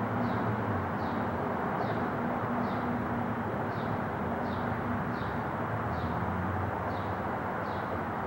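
Steady distant jet noise of a four-engine Airbus A340 on approach with its gear down: a wide rushing sound over a low hum. A short, high chirp repeats about every two-thirds of a second over it.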